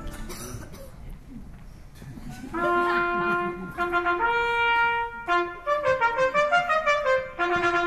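Fanfare music with a brassy sound, starting about two and a half seconds in: a few held notes, then a quick run of changing notes, then held notes again.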